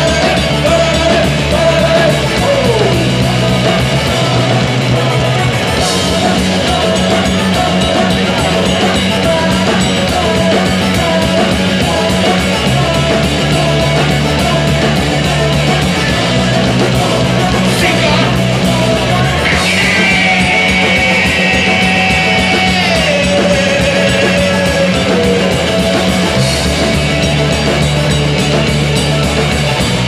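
Live rock band playing amplified through a PA: drum kit, bass and keyboard, with a singer at the microphone, heard from the audience area.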